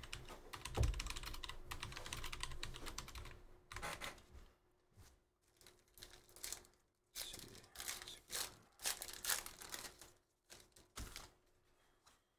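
Rapid clicking of a computer keyboard being typed on for about three seconds. Then a trading card pack's wrapper is torn open and the cards handled, in short separate crinkling and rustling bursts.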